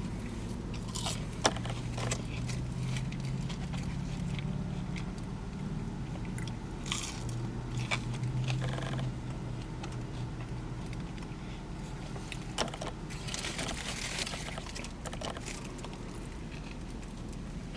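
A person eating close to the microphone: bites and chewing, with scattered short clicks and noisy bursts. A low steady hum runs underneath.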